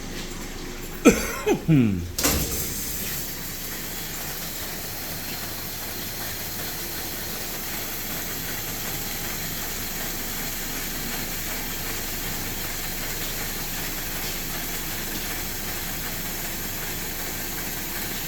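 Commercial lift-door dishwasher running with a steady hiss of water spray and steam. About a second in, a brief loud screech falls in pitch, followed by a few knocks.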